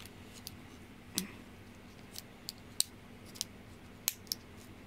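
A series of small, sharp plastic clicks and crinkles, about eight, spaced irregularly: fingers picking at the plastic film wrapped on a rechargeable headlamp battery to peel it off.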